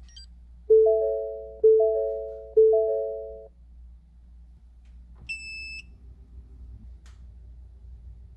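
Car warning chime sounding three times, about a second apart, each chime a few notes ringing and fading out, as the ignition is switched on with the engine not running. A short, high single beep follows about five seconds in.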